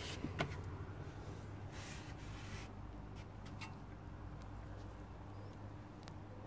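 Low, steady background hum with a sharp click about half a second in, a brief rustle around two seconds in, and a few fainter clicks.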